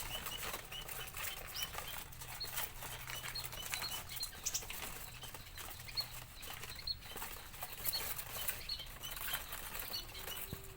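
Small birds fluttering and flapping about inside an aviary cage, with many short high chirps repeating several times a second.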